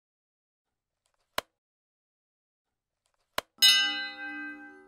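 Subscribe-button overlay sound effect: two sharp mouse clicks about two seconds apart, then a bell dinging once and ringing out over a second or so.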